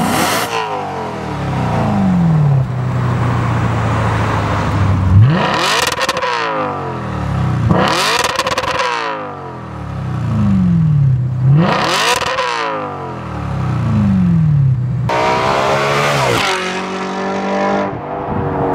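Audi RS5 B8's 4.2-litre V8 through a valvetronic Fi Exhaust system, free-revved about five times and dropping back to idle between blips, first with the exhaust valves closed and then with them open.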